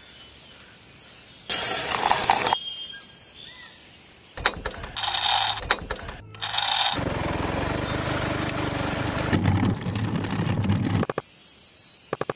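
Short bursts of mechanical noise cut one after another, then a small motor running steadily for about four seconds from the middle on, then a few faint clicks near the end.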